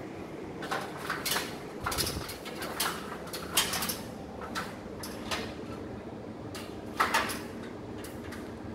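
A series of sharp clicks and knocks, clustered in the first four seconds with a louder pair near seven seconds, over a steady background hum.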